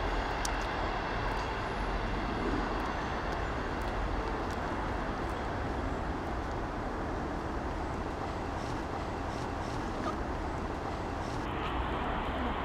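Steady outdoor background noise: a low rumble with an even hiss over it, with no distinct events.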